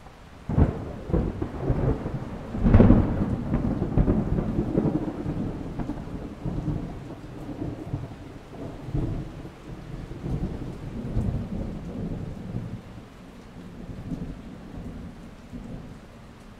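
A thunderclap breaks about half a second in and peaks again near three seconds. It then rolls and rumbles away unevenly, fading over the next dozen seconds.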